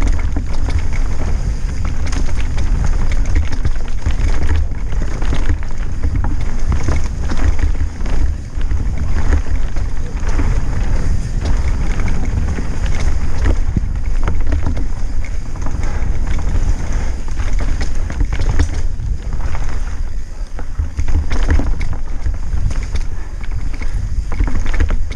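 Wind buffeting a helmet-mounted camera's microphone on a fast mountain-bike descent, a loud, steady low rumble, with frequent knocks and rattles as the bike rolls over roots and rocks.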